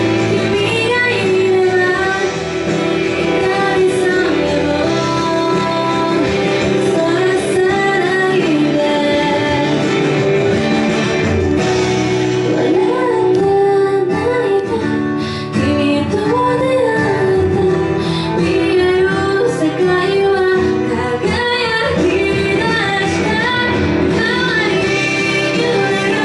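A woman singing a Japanese pop song into a handheld microphone over instrumental accompaniment, her voice carrying the melody without a break.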